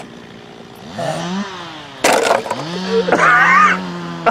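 Small two-stroke model airplane engine being kick-started by foot. It catches about a second in and rises in pitch, then dies. A sharp knock comes at about two seconds, and the engine fires again and keeps running at a steady pitch. A wavering higher note sounds over it for about half a second after three seconds in.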